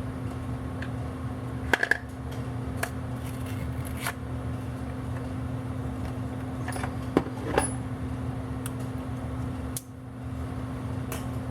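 A steady low mechanical hum, with a few light clicks and taps scattered through, as small items are handled.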